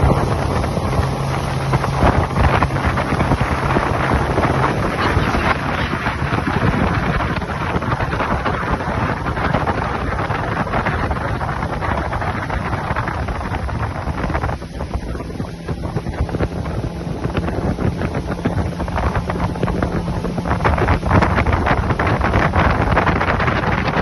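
Twin 60 hp Mercury Bigfoot outboards running at cruising speed under a heavy rush of wind on the microphone, with a low steady engine hum showing through.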